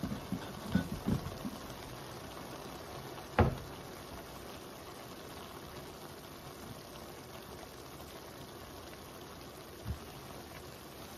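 Sliced beef and onions sizzling steadily in a skillet. A few light knocks come in the first second or so, one sharp knock about three and a half seconds in, and a softer one near the end.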